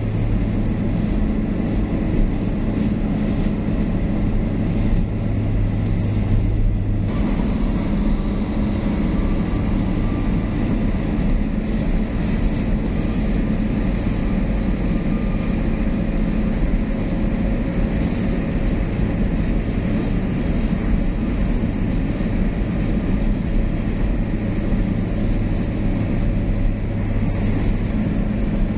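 Steady road noise of a car at highway speed, heard from inside, with tyre and engine drone. About seven seconds in the tyre noise changes abruptly, losing its low hum and turning brighter and hissier, as the road goes from asphalt to concrete pavement.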